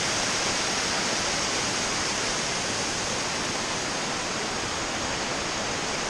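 Waterfall cascading down rock ledges: a steady, even rush of falling water.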